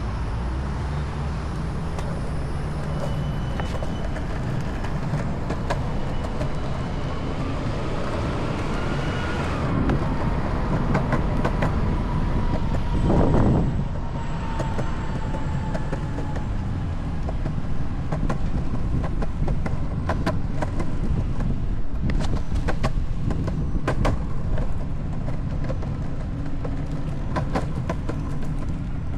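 Longboard wheels rolling on a concrete sidewalk: a steady low rumble with sharp clacks as the wheels cross the pavement joints. The clacks come thick and fast in the second half, and a louder swell rises and falls about 13 seconds in.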